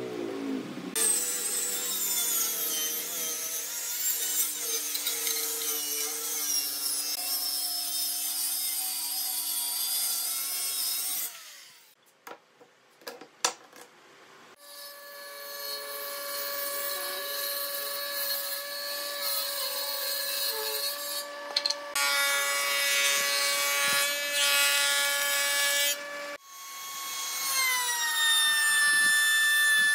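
Power tools working pine boards in separate runs, each with a steady motor drone. A cutter goes through the wood from about a second in until about eleven seconds. A few wooden knocks follow in a short lull, then another long run of machining. Near the end a router table's motor runs while a board is fed past the cutter.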